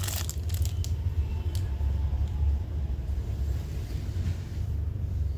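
Steady low background rumble, with a few faint clicks near the start.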